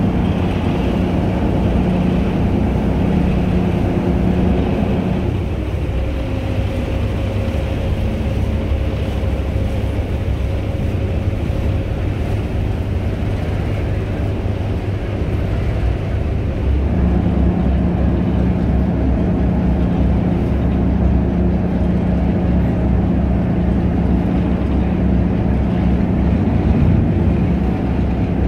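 Ferry engine running with a steady low drone and water noise. The drone eases about five seconds in and grows stronger again about seventeen seconds in.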